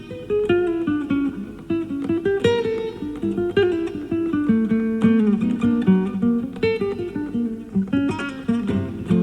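Classical guitar playing a quick, busy passage of plucked single notes and chords, heard as a live FM broadcast recorded onto cassette tape, with dull, muted highs.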